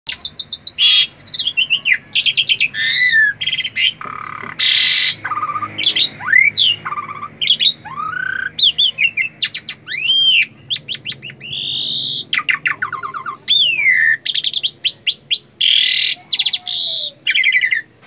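Asian pied starling (jalak suren) singing a long, varied chattering song, nearly without pause: clear whistled notes that rise and fall, harsh rasping bursts, and quick runs of clicks.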